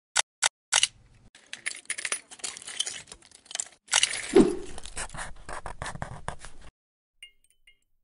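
Plastic Lego bricks clicking and rattling: a few sharp clicks, then several seconds of dense rattling and clicking with a dull thud about four seconds in. It stops abruptly near seven seconds, leaving a few faint ticks.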